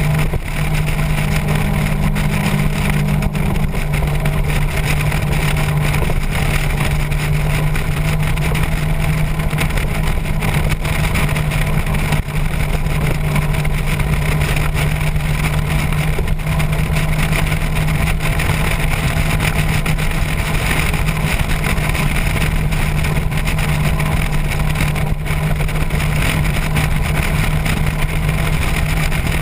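Motorcycle engine running at a steady cruising speed, its note holding constant with no gear changes, under a continuous rush of wind.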